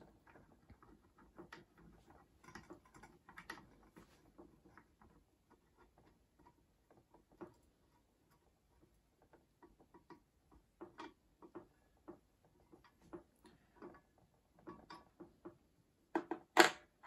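Faint, irregular small clicks and ticks of a chuck key turning the xTool RA2 Pro rotary's chuck counterclockwise, opening the stud jaws inside a tumbler. Two louder sharp knocks come near the end.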